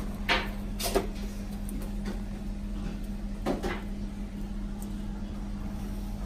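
Three or four short knocks and clatters, the sharpest about a second in, over a steady low hum.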